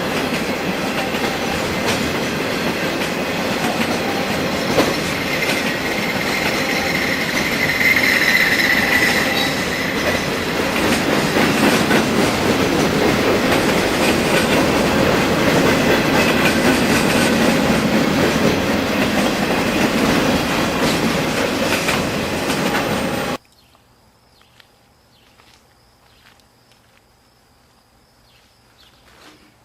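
Union Pacific freight cars rolling past close by, steel wheels clicking over rail joints, with a brief wheel squeal about a third of the way through. The sound cuts off abruptly near the end, leaving a quiet background with a faint steady high tone.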